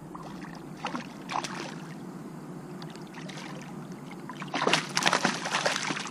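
A hooked fish splashing at the water surface as it is reeled in. A couple of small splashes come in the first second and a half, then loud, rapid thrashing splashes follow from about four and a half seconds in.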